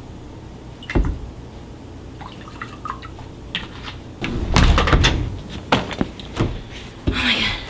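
A glass liquor bottle and a glass tumbler handled on a table: liquor poured into the glass, with several sharp knocks as glass meets the tabletop. About four seconds in comes a louder, noisier clatter lasting about a second.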